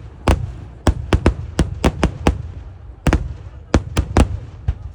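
Kerala temple-festival fireworks (eeduvedi): a rapid, irregular string of loud blasts, about a dozen in under five seconds, with a low rumble between them.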